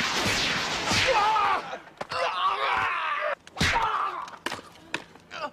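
A rapid burst of gunfire sound effects for about the first second and a half. Then come strained grunts and groans from fighters, with a few sharp hits and thuds of blows and bodies.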